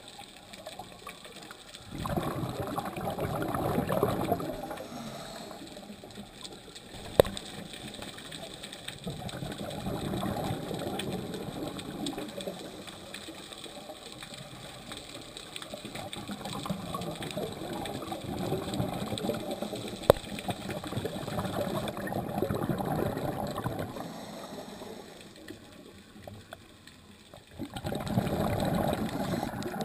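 Scuba diver's regulator exhaling, heard underwater: five bursts of bubbling a few seconds each, about every six seconds, with quieter stretches between. Two sharp clicks stand out, one about seven seconds in and one about twenty seconds in.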